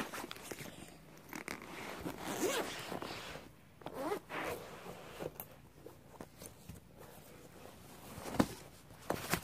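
A zipper being pulled in a series of short, uneven strokes, typical of zipping shut a case as the fidget spinner collection is packed away.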